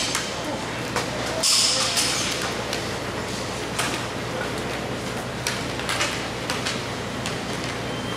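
Indoor ball hockey rink ambience during a stoppage: scattered knocks and clacks of sticks and the ball on the playing surface, with a noisy burst about a second and a half in, over a steady low hum of the building.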